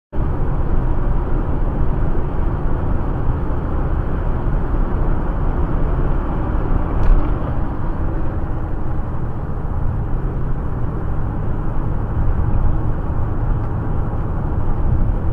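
Steady road noise of a car driving at freeway speed, heard from inside the cabin through a dashcam microphone: a low rumble of tyres and engine with hiss on top. A brief faint click about seven seconds in.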